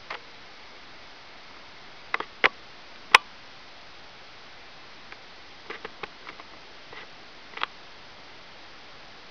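A few sharp clicks over a steady hiss: three loud ones a couple of seconds in, then a scatter of quieter ticks later on.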